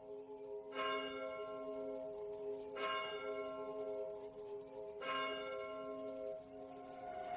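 Bell-like chimes struck four times, about two seconds apart, each ringing out and fading, over a soft low pulsing tone: the quiet opening of a pop song's instrumental intro.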